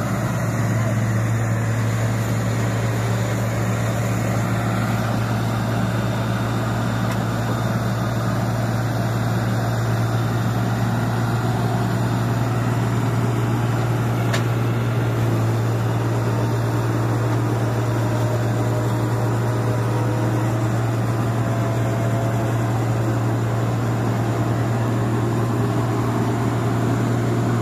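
Diesel engines of an excavator and a combine harvester running steadily in one constant drone while the excavator works its arm to free the combine from clay mud.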